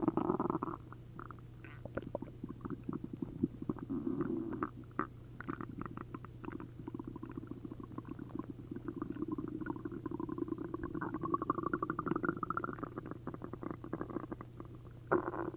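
Human stomach and intestines gurgling and bubbling as liquid moves through the gut: an upset stomach after a liter each of milk and prune juice. A loud gurgle fades in the first second, then a run of quick bubbly pops, a longer gurgle rising in pitch in the second half, and a short louder gurgle near the end.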